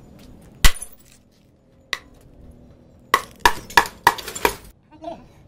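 Hammer blows on an old CRT television's thick glass and casing, with glassy clinks: a sharp loud knock about half a second in, another a second later, then a quick run of about six blows.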